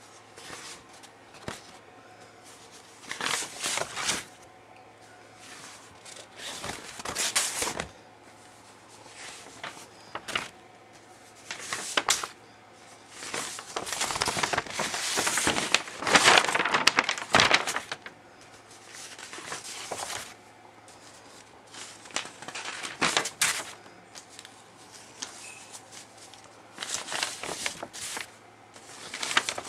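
Sheets of painted paper rustling and crinkling in irregular bursts as they are handled and leafed through, the longest and loudest about halfway. A faint steady low hum lies beneath.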